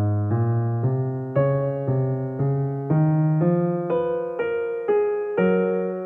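Background piano music: notes struck about twice a second, the bass line climbing step by step.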